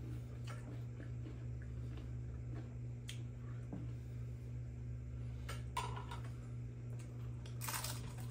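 Quiet eating at a table: spoons lightly clinking in clay pozole bowls and a few short crunchy chewing sounds, over a steady low hum.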